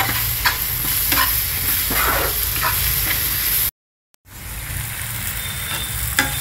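Chopped onion and tomato masala sizzling in oil in a nonstick frying pan while a plastic spatula stirs it, scraping the pan about once a second. The sound cuts out for half a second a little past the middle and fades back in.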